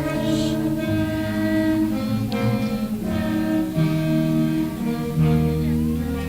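A school band playing a slow instrumental passage, held chords that change about once a second, with no singing.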